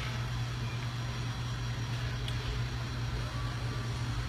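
Steady low hum with an even hiss over it: the background room noise of a restaurant dining room.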